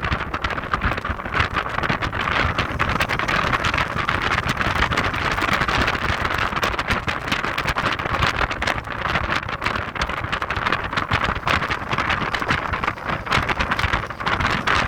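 Heavy wind buffeting on the microphone of a moving Audi TT 225 Quattro roadster: a steady rushing hiss with rapid flutter, over the car's driving noise.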